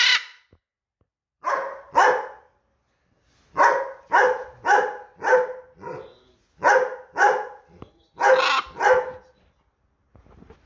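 A German Shepherd barking, about a dozen short, loud barks in quick runs of two or three.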